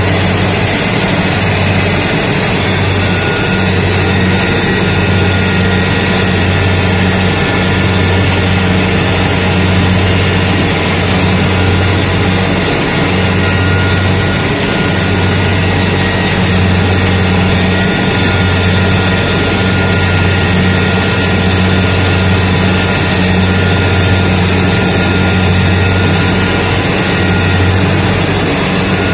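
Rice combine harvester running steadily as it cuts ripe rice: a loud, even engine hum with steady higher machine tones above it.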